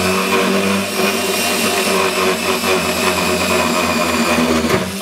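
Power drill running steadily with a 3/4-inch bit boring through the thin plastic top of an aquarium canopy; the motor stops suddenly right at the end.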